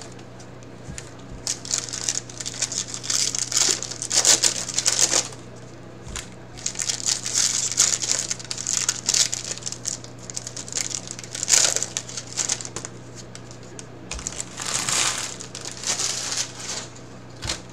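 Foil trading-card pack wrappers crinkling and tearing as they are handled and opened, in three irregular spells, over a steady low hum.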